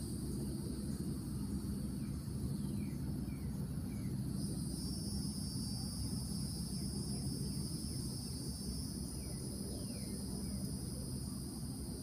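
Insect chorus: a steady high-pitched trilling, with a second insect joining at a slightly different pitch about four and a half seconds in. A few faint short falling chirps and a low steady hum lie underneath.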